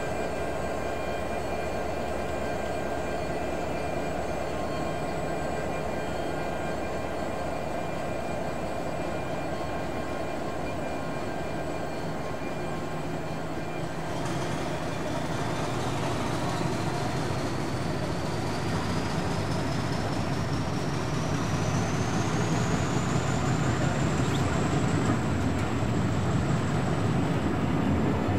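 Diesel locomotive engine running steadily, then opening up about halfway through. A high whine rises steadily in pitch and then levels off, and the engine grows louder.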